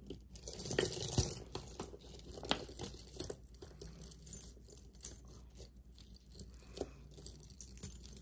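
Costume jewelry being handled and sorted: small pieces clinking and jangling against each other, with light rustling. The clinks come thickest in the first few seconds, then scatter more sparsely.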